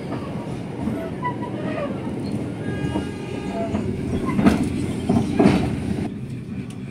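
Kutojaya Selatan passenger train running on the rails: a steady rumble with wheel clatter, and two louder clanks about four and a half and five and a half seconds in.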